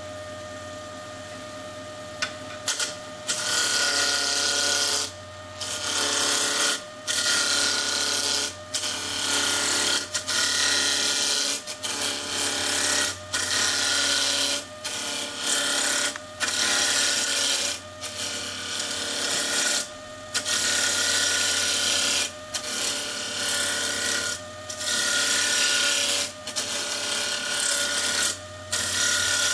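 Charnwood W821 midi woodturning lathe running with a steady motor whine. From about three seconds in, a skew chisel cuts the spinning wooden spindle in repeated passes, each a second or two long with short breaks between.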